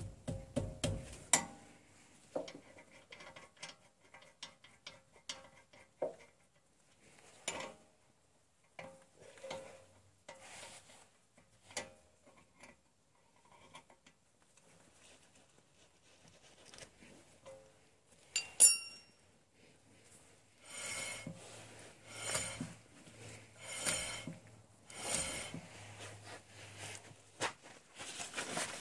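Hand wrench working the bolts of a rear brake caliper: scattered metallic clicks and clinks of steel tool on bolt and caliper, with one sharper clank about two-thirds of the way through and a run of quick repeated strokes near the end.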